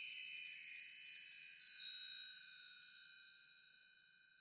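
Chime sound effect: several high ringing bell-like tones struck together that slowly fade away.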